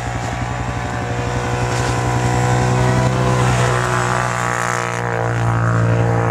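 ATV engine running with a deep, steady note as the quad drives and slides through snow. It grows louder over the first three seconds, eases off, then rises again near the end.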